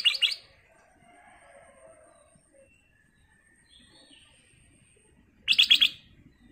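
Ruby-throated bulbul (kutilang emas) giving two short bursts of quick, clear whistled notes: one at the start and another near the end, with little between them.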